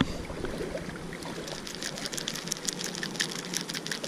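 Quick, irregular clicking and light rattling, starting about a second in, as hands work a crankbait and its treble hooks free from a caught bass.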